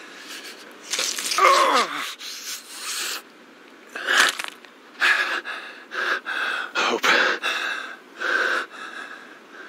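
A person's strained, ragged breathing: a string of gasping, wheezing breaths, with a groan that falls in pitch about a second in.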